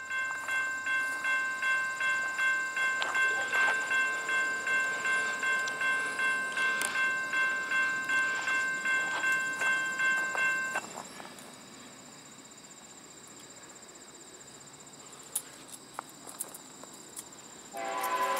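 Electronic railroad crossing bell dinging steadily about twice a second, falling silent about eleven seconds in, leaving a faint high insect buzz. Near the end an approaching freight train's locomotive horn starts to blow, loud.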